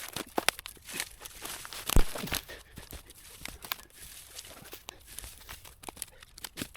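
Brush and branches being handled and dragged, twigs crackling and snapping in an irregular string of sharp cracks, the loudest about two seconds in.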